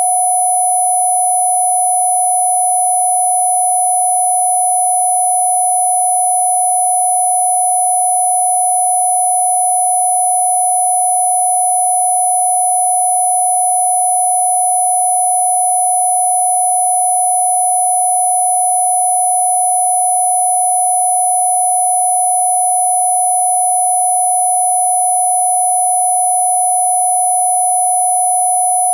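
A steady electronic sine tone, a single unwavering mid-pitched hum with faint higher tones layered above it. It is a Rife-style healing-frequency tone played for cough relief.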